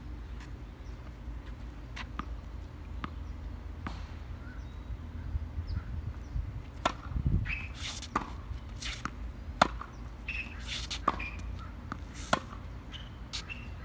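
Tennis balls being hit by rackets and bouncing on a hard court during a baseline rally: sharp pops about every second, louder and closer together in the second half. A steady low rumble runs underneath.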